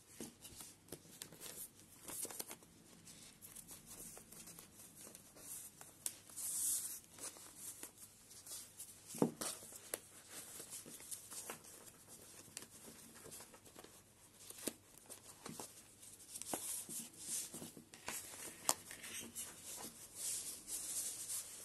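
Crocheted cotton fabric rustling and scraping as hands stretch the bag sideways and work it over a book, with scattered soft clicks.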